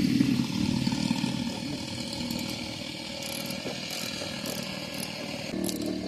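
A tool turning a 10 mm socket on a fender-flare fastener, backing it out. The run is loudest in the first second, then goes on steadier and quieter, and changes near the end.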